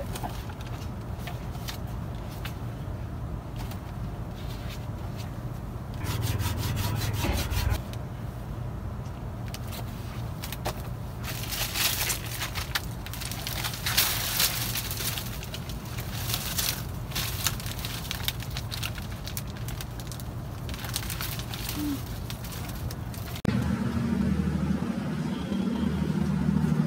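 Rubbing and scraping handling noises, in quick runs of strokes, over a steady low hum; a louder low drone comes in near the end.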